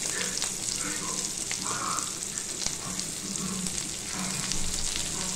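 Chopped shallots sizzling steadily in hot oil in a frying pan, with scattered small crackles.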